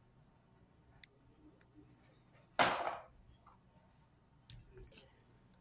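Small stationery items being set into the compartments of a plastic organizer tray: light clicks and taps of plastic on plastic, with one louder half-second rattle about two and a half seconds in and a few more knocks near the end.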